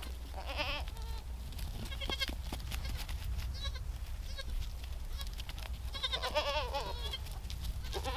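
Goats bleating: several quavering bleats, the longest about six seconds in. A kid separated from its mother is calling for her.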